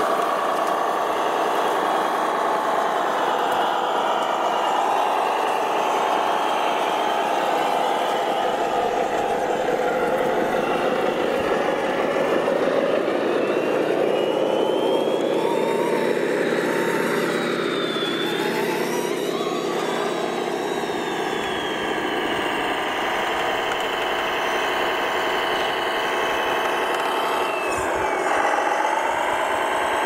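Radio-controlled model trucks running under load, their electric drive motors and gearboxes whining steadily, with the pitch rising and falling as the throttle changes.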